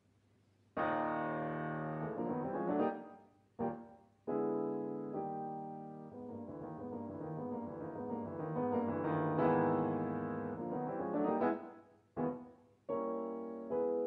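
Background piano music that starts about a second in and plays in phrases with a few brief pauses between them.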